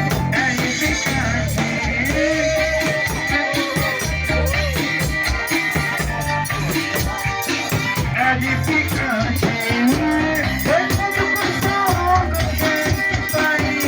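Music with a rattling shaker or maraca rhythm over a pulsing bass line and a gliding melody.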